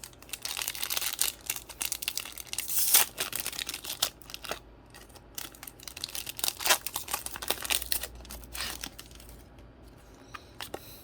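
Pokémon booster pack's foil wrapper being torn open and crinkled. There is a dense rustling crackle for the first few seconds, loudest about three seconds in, then scattered crinkles and light clicks as the wrapper and cards are handled.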